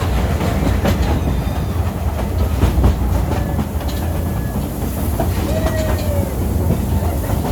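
Miniature steam train riding along its track, heard from aboard: a steady low rumble with the wheels clicking over the rail joints.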